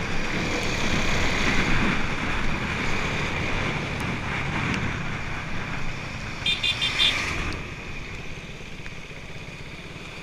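Motorcycle running along the road with steady engine and road noise. About six and a half seconds in, a vehicle horn sounds in a quick run of short toots. After that the engine noise drops lower, as the bike eases off.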